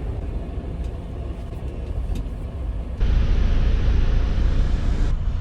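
Semi truck's diesel engine rumbling low and steady, heard from inside the cab; about three seconds in the sound jumps suddenly louder with a hiss of added noise.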